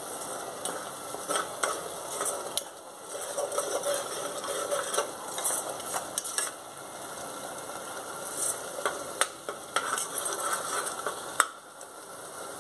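A metal ladle stirring and scraping a ground green masala paste frying in ghee in a pressure cooker, with repeated clicks of the ladle against the pot over a steady sizzle. The paste is being fried until its raw smell is gone.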